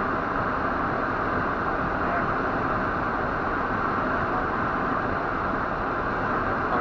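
Steady road and wind noise inside a moving car's cabin, an even hiss with no breaks.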